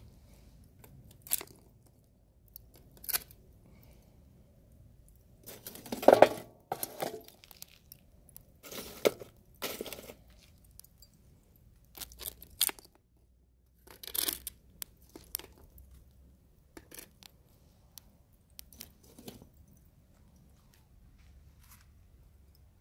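Charcoal briquettes in a kettle grill crackling and crunching as they catch: irregular sharp cracks and short crunchy pops, the loudest about six seconds in.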